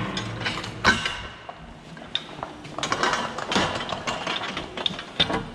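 Steel cattle-pen gate being handled: the metal latch and bars clank and rattle in several bursts, with short metallic rings.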